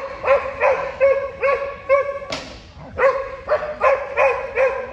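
A dog barking over and over in short, evenly pitched barks, about three a second, with a brief pause a little past the middle.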